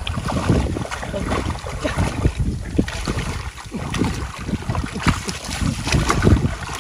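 Water splashing and sloshing in irregular surges and thuds as hands and bodies work through it, with wind buffeting the microphone.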